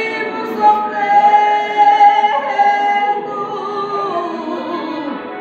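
A voice singing unaccompanied, holding long notes that slide from one pitch to the next.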